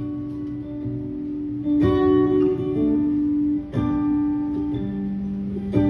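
Acoustic guitar played solo. Chords are strummed hard about every two seconds and left ringing between strokes.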